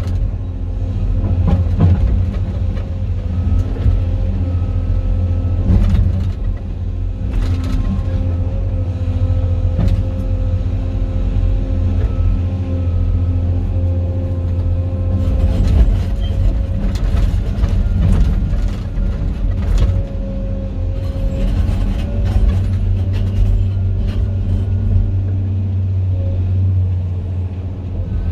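Cat 390F L excavator's C18 diesel engine running under working load, heard from inside the cab as a deep steady rumble with a held mechanical whine, while the machine digs. Scattered sharp knocks of blasted limestone against the bucket run through it.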